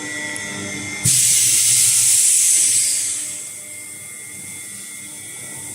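Double-chamber vacuum sealer running with a steady hum, then about a second in a sudden loud hiss of air rushing back into the chamber as the vacuum is released at the end of the cycle, fading away over about two seconds.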